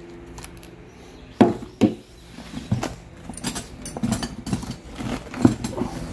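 Tools knocking and clinking as they are handled and packed into a fabric tool bag: two sharp knocks a little over a second in, then a run of clinks, clunks and fabric rustling.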